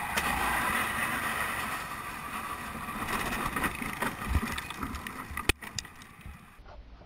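Onboard sound of a racing kart: the engine buzzes steadily with wind on the microphone, then knocks and rattles as the kart bumps across grass and rough ground off the track. One sharp knock comes late on, and the engine sound fades near the end.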